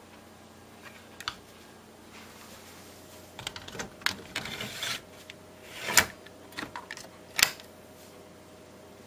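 A 3.5-inch hard drive in its caddy slid into the removable hot-plug bay of a Popcorn Hour C-200 media player: a scraping slide, then sharp plastic clicks as the caddy seats and the bay closes, the loudest about six seconds in and another near seven and a half seconds.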